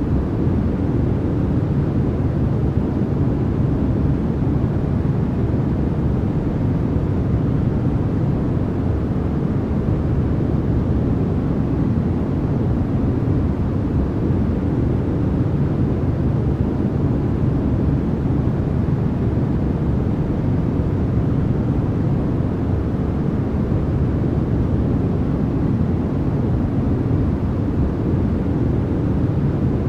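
Continuous white-noise track: a steady, even hiss with most of its weight low down, so it sounds deep rather than bright.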